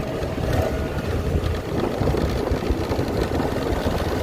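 A road vehicle running steadily while moving, with wind rushing over the microphone.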